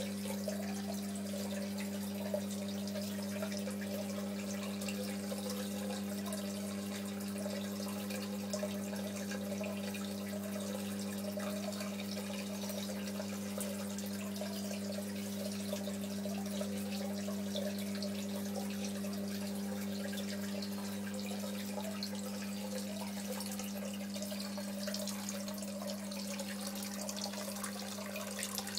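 NYOS protein skimmer running in an aquarium sump: a steady electric pump hum under water trickling and splashing, the splashing a little brighter near the end.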